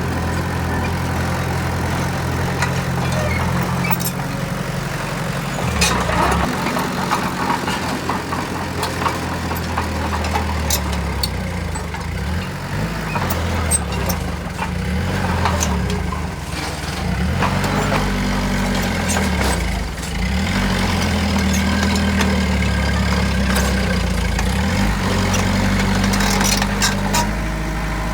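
Heavy diesel engines of a dump truck and bulldozer running, their pitch rising and falling as they work, with a few scattered sharp clicks.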